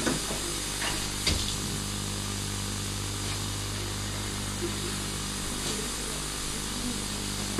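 Bath tap running into a foam-filled bath, a steady rushing hiss over a low steady hum, with two brief knocks in the first second and a half.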